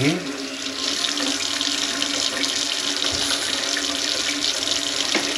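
Water running steadily, with a steady hum underneath.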